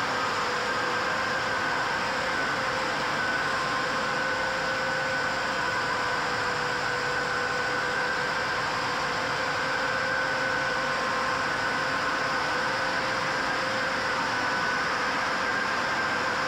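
Flexographic label printing press running in production: a steady machine hiss with a faint constant whine of a few high tones, unchanging throughout.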